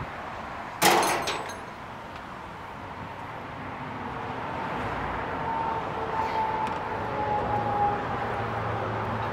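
A single loud metallic clang about a second in, ringing briefly, over the steady rumble of a running engine and passing traffic.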